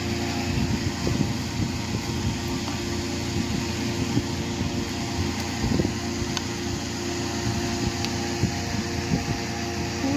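A steady mechanical whir and hum, with many small low knocks and a few light clicks scattered through it.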